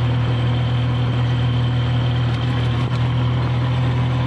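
Motor rickshaw's engine running steadily on the move: a constant low drone with road noise.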